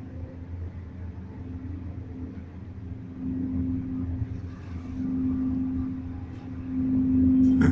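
Cable-car cabin in motion: a steady mechanical hum with a constant drone and a low rumble that swells louder a few times and is loudest near the end, where a short clatter comes.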